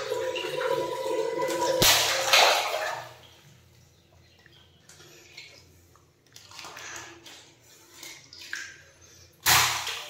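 Water rushing and splashing for about three seconds, then dropping to quieter, scattered splashes. A sudden loud burst comes about nine and a half seconds in.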